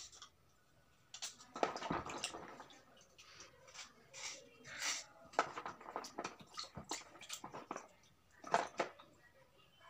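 A knife blade scraping and cutting the edges of a wet slab of soft slate stone in a basin of muddy water, with small splashes and drips. The scrapes and clicks come in uneven bursts, loudest about two seconds in, around the middle and near the end.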